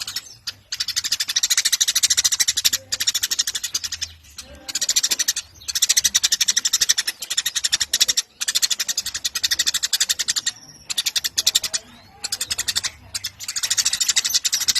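Eurasian tree sparrow chirping in fast, dense bouts of chatter lasting a second or two each, broken by short pauses.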